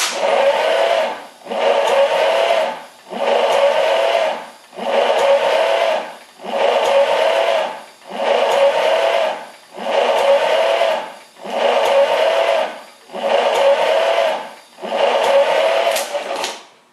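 A small electric motor running in about ten bursts of a second or so each, with a whirring pitch that wavers within each burst. It is turning the Studebaker 289 V8 over so that the compression gauge on cylinder 8 can build up pressure.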